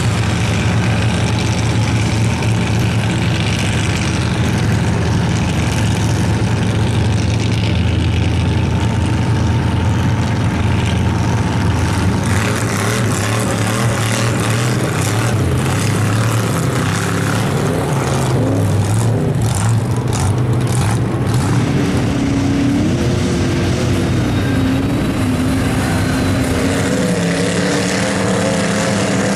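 Lifted mud trucks' engines running loud and steady, then revving higher in the second half as the trucks churn through deep mud.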